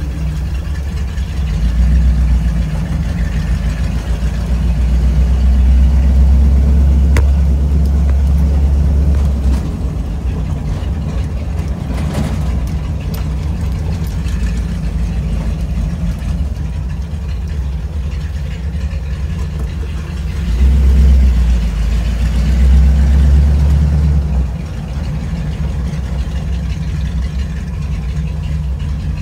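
A 1974 Ford Bronco's engine and exhaust heard from inside the cab while driving: a low, steady drone that gets louder twice as the truck pulls, from about two to ten seconds in and again around twenty-one to twenty-four seconds in. There is a single brief click about twelve seconds in.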